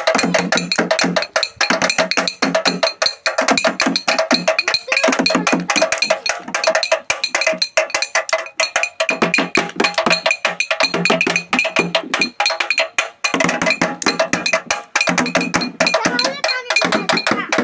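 Percussion music: rapid, dense strikes with ringing, bell-like tones running through them.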